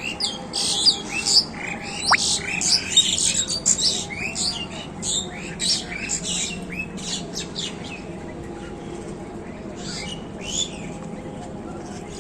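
A flock of birds gathered at scattered feed, chirping densely for the first half and more sparsely after about seven seconds.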